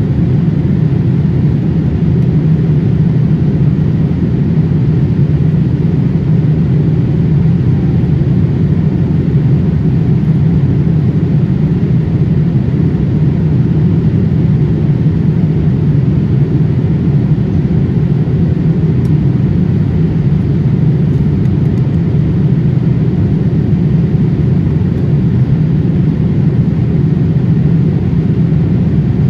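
Steady in-flight cabin noise of a Boeing 787-8 heard inside the cabin at a window seat: an even, low rumble of airflow and engines that does not change.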